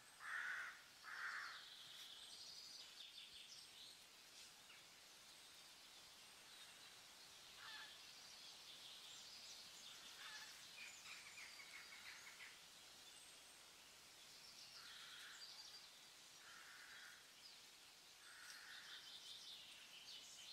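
Faint birdsong: short calls twice near the start and several more near the end, with higher chirping and twittering in between.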